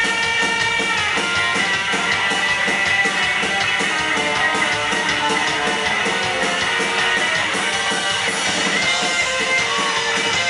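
A rockabilly band playing live, electric guitar to the fore over drums and bass, with an even driving beat.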